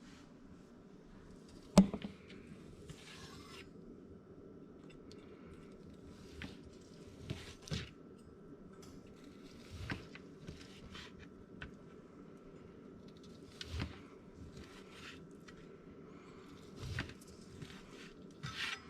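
A knife slicing a rested venison roast on a cutting board: quiet cutting and scraping strokes with scattered knocks against the board, the sharpest about two seconds in.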